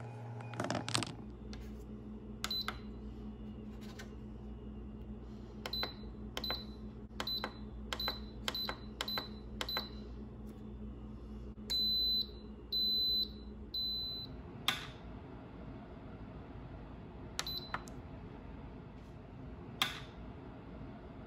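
Instant Pot electric pressure cooker's control panel beeping as its buttons are pressed: a click near the start, then a string of short high beeps, one per press, quickening between about 6 and 10 seconds in. Three longer beeps follow around 12 seconds in as the set cooking program starts, then a few single button clicks.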